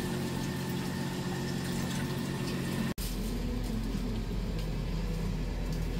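A steady machine hum with a hiss over it, cutting sharply about three seconds in to a different, deeper and steadier hum.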